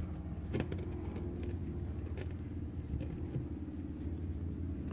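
Steady low background hum with a few faint metallic clicks as a brass valve and black iron pipe fittings are handled and threaded together.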